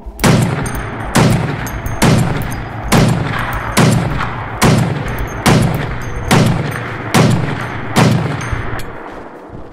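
Barrett .50 BMG semi-automatic rifle firing ten shots in quick succession, a little under a second apart, each loud report trailing off in a rolling echo.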